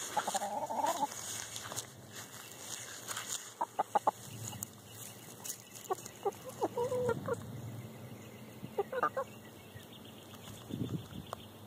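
Young Barred Plymouth Rock pullets, not yet laying, clucking and giving short calls in small clusters with pauses between.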